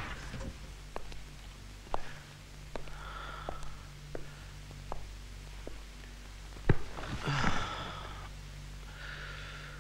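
Footsteps across a room, roughly one every 0.7 seconds. About two-thirds of the way in, a sharp thump as a man drops onto a sofa, followed by a long, heavy breath. Softer breathing and a low hum lie underneath.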